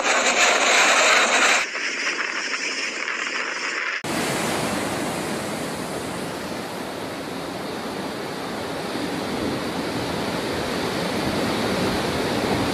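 Storm wind and driving rain, then a sudden cut about four seconds in to heavy storm surf: large waves breaking and churning in a steady rushing noise.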